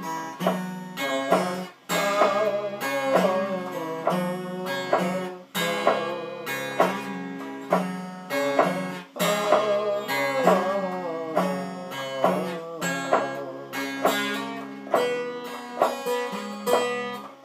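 Acoustic guitar picking an instrumental blues break with bent notes, over a steady low beat.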